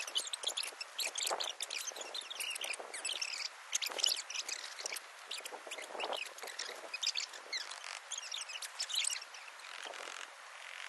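Small birds chirping and singing in rapid, overlapping calls. The calls stop about nine seconds in, leaving a faint steady hiss.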